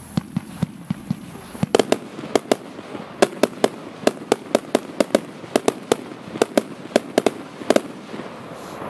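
A consumer firework cake (battery) firing a rapid series of sharp bangs, about three a second, louder after the first couple of seconds.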